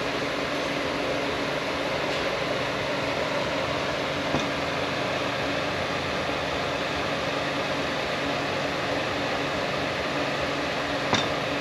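Steady whirring hum of a running fan, with two light clicks from parts being handled at a transmission case, one about four seconds in and one near the end.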